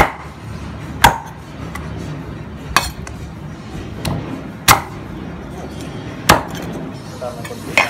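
Heavy handmade Phaluong cleaver chopping Muscovy duck pieces on a round chopping block: about six single sharp chops, spaced roughly a second and a half apart.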